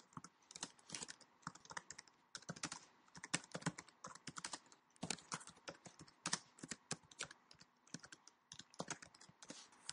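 Faint typing on a computer keyboard: quick, uneven runs of keystrokes with short pauses between them.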